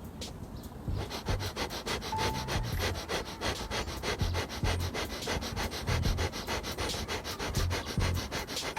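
Breath of fire: rapid, forceful sniffing breaths through the nose at about five or six a second, starting about a second in and keeping an even rhythm.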